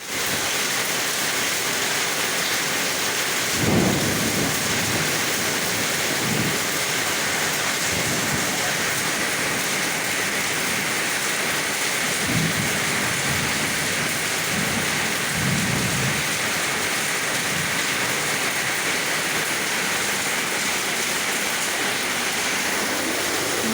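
Heavy rain pouring down in a steady loud hiss, with several short low rumbles of thunder, the strongest about four seconds in.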